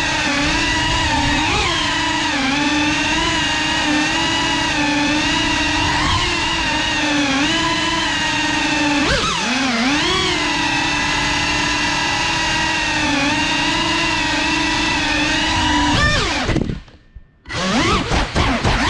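GEPRC CineLog35 cinewhoop drone's motors and ducted propellers whining steadily as it flies, the pitch wavering with throttle. The pitch dips and wobbles about nine seconds in; near the end the motors cut out almost to silence for about a second, then spin back up with the pitch bouncing up and down.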